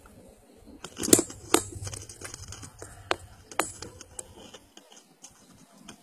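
A few sharp clicks and scrapes, the loudest about a second in and smaller ones around a second and a half, three and three and a half seconds in, over a faint low rumble that stops shortly before the end.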